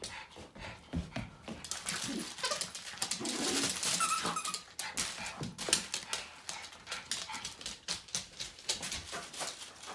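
Rat terrier's claws clicking and skittering on a hardwood floor as it scrambles around at play, with a short whine about four seconds in.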